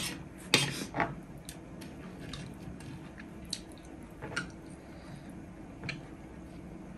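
Close-up eating sounds: wet chewing of rice and chicken biryani, with a metal spoon clicking and scraping against a ceramic plate and a plastic tub a few times. The sharpest clicks come at about half a second and a second in.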